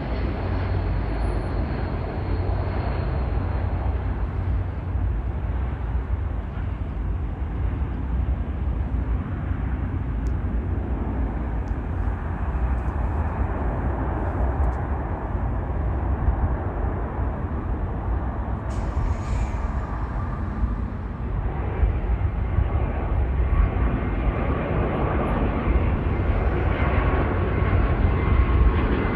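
Airliner engine noise, steady and growing a little louder near the end.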